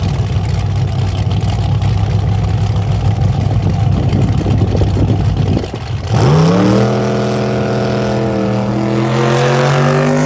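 Drag race car engines idling loud and lumpy at the starting line, then about six seconds in one car launches: its engine note sweeps sharply up and keeps climbing as it accelerates down the strip.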